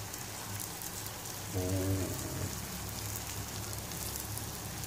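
Pancake batter sizzling in butter in a non-stick frying pan: a steady crackling hiss. A brief low hum sounds about a second and a half in.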